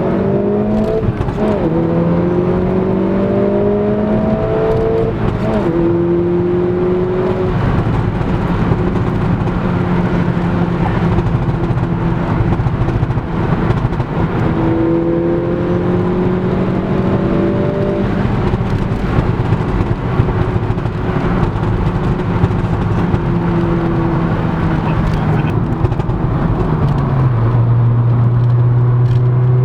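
Audi S1's turbocharged four-cylinder engine pulling hard: its note rises through the gears, dropping at each shift in the first few seconds, then holds a steady drone. It climbs again about halfway through and settles to a lower note near the end.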